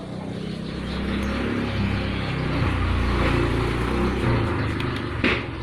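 Low engine rumble of a passing road vehicle, growing louder towards the middle and fading away near the end.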